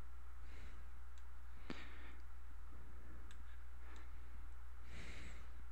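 A few scattered computer mouse clicks over a steady low electrical hum.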